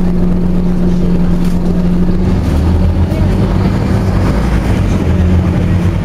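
Scania OmniCity double-deck bus heard from inside the passenger saloon while on the move: the engine and drivetrain run with a low rumble and a steady drone that drops away about five seconds in.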